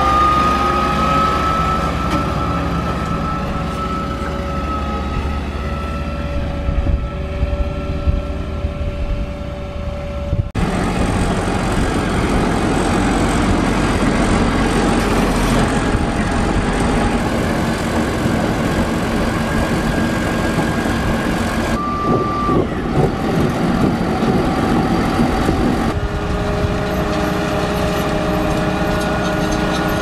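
Grimme Varitron 220 self-propelled potato harvester running as it lifts and unloads potatoes: a steady engine and machinery noise with a steady whine over it. The sound changes abruptly a few times.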